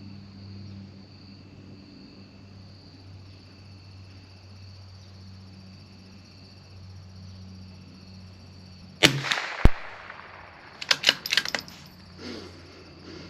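A single shot from a CZ 457 bolt-action .22LR rifle about nine seconds in, followed half a second later by a second sharp crack. About a second after that comes a quick run of metallic clicks, as the bolt is worked to eject the case and chamber the next round.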